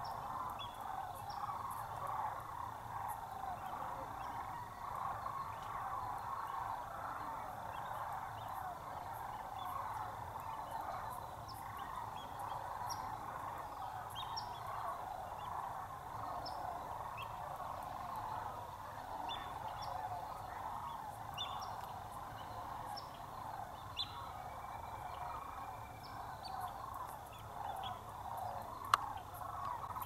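A large flock of birds calling in flight, many voices overlapping into a continuous chorus, with scattered short high chirps above it. A single sharp click about a second before the end.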